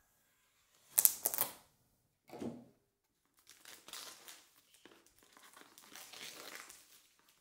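Clear plastic shrink wrap on a cardboard box being cut and torn open, with a sharp rip about a second in, the loudest moment, and a shorter one soon after. Then a long stretch of crinkling as the film is peeled off the box.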